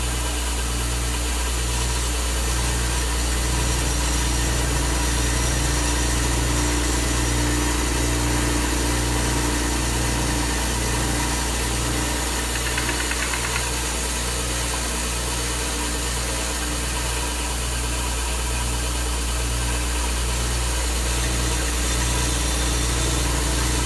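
Stationary power sander running steadily: a loud, constant motor hum with a regular pulsing in its low tones.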